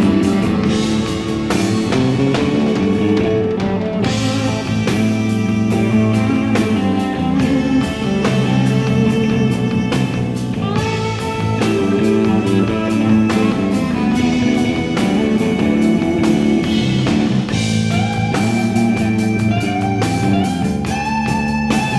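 Instrumental rock music with electric guitar over a drum kit at a steady pulse. A wavering, bending lead line comes in near the end.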